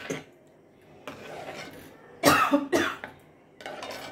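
A woman coughs twice in quick succession about two seconds in. Around it are softer sounds of a steel ladle being stirred through liquid in an aluminium pan.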